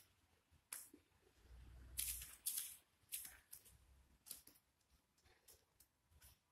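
Faint, irregular rustles and soft clicks of a person shifting her weight in a backbend on a yoga mat, the loudest pair about two seconds in.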